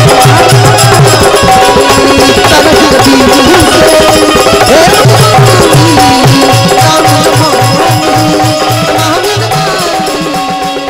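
Devotional Ramayan chaupai music: a dholak beats a fast rhythm under steady harmonium tones and a sung melody. The music fades out over the last few seconds.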